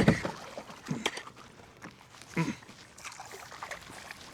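A dull knock at the start, then faint sloshing water and a light click while a hooked bass is brought alongside a kayak, with a brief voice sound about two and a half seconds in.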